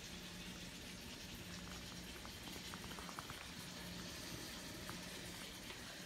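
Faint, steady sizzling of food cooking, with a faint low hum and a few tiny crackling ticks about two to three seconds in from the freshly lit wooden candle wick.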